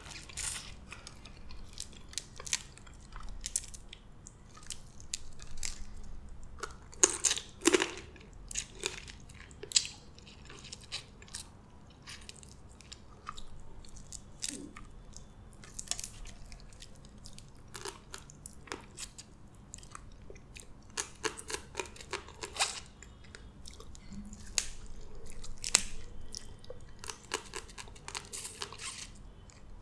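Close-miked eating of boiled blue crab: irregular cracks and crackles of shell being broken by hand, with chewing of the crab meat. The sounds come in louder clusters, one about seven seconds in and more in the last third.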